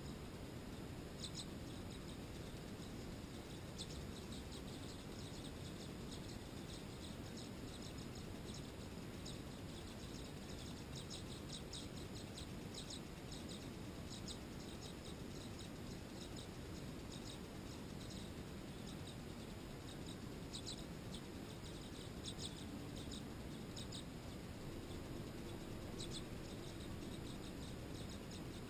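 Tree swallows chirping: short, high chirps in scattered clusters, busiest in the middle and again near the end, over a steady low background hiss.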